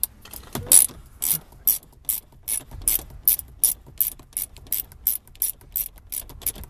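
Socket ratchet wrench clicking in a steady rhythm, about three clicks a second, as it is swung back and forth to back out a screw.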